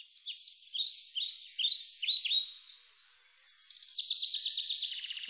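Birdsong: a run of quick, high chirps, then a fast trill for the last second and a half.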